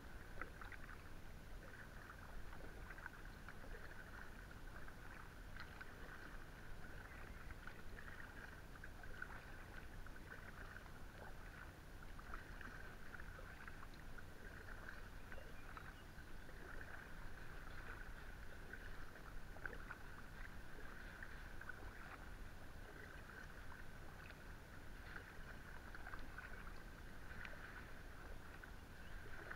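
Kayak paddle strokes on calm water: small splashes and drips from the blades, scattered through the whole stretch, over a steady low rumble.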